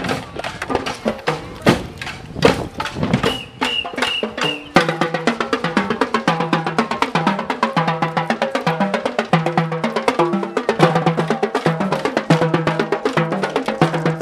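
Marching drumline of snare and bass drums playing a fast, dense cadence close by. Before it, scattered drum strokes and a short high tone heard three times, then the full rapid drumming starts abruptly about five seconds in.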